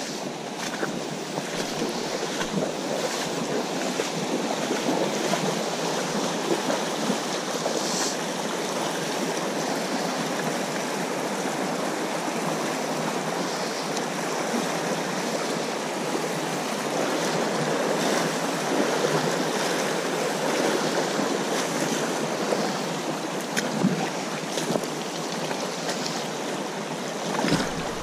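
Shallow creek water rushing steadily over a gravel riffle, with occasional splashes from boots wading through it.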